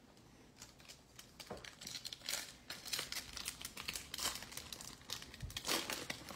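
Foil wrapper of a 2021 Panini Chronicles football card pack crinkling as it is handled and torn open: a rapid, uneven crackling that starts shortly in and grows louder from about two seconds in.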